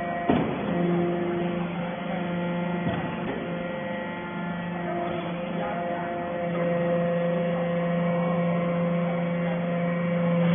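Hydraulic metal-shavings baler running with a steady machine hum, with a sharp knock near the start and another about three seconds in.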